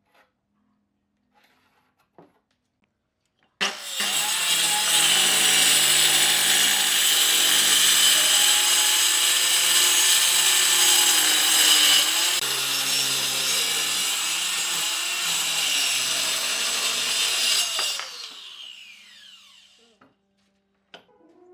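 Electric power tool working wood: it starts abruptly a few seconds in, runs under load for about fourteen seconds as a high whine over rough cutting noise, then is switched off and spins down with a falling whine. A few faint knocks before and after.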